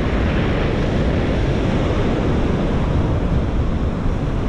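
Ocean surf breaking and washing on the beach, with wind buffeting the microphone: a steady rush with no break.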